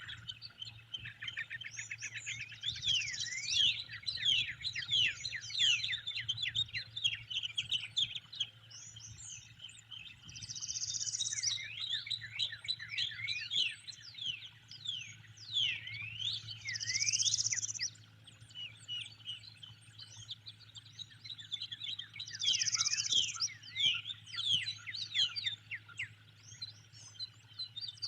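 Several songbirds call and chirp in quick rising and falling notes, with a short, high, buzzy call repeating about every six seconds. A steady low hum runs underneath.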